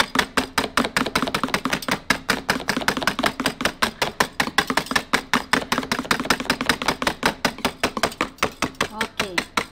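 Wire egg whisk beating soapy water in a tray, its tines clicking rapidly against the tray at about six to seven strokes a second as the dish soap froths into foam.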